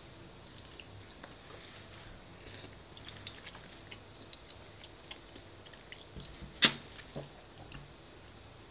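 Close-up chewing of spaghetti bolognese: soft, wet mouth clicks and squishes, with one sharp click about two-thirds of the way through that is the loudest sound.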